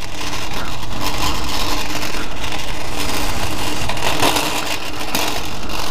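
Metal shopping cart pushed across asphalt, its wheels and wire basket rattling steadily, with a louder clatter about four seconds in.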